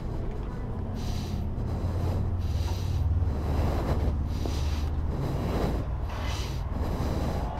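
Low, steady rumble of wind on the microphone, with short hissing rustles about once a second.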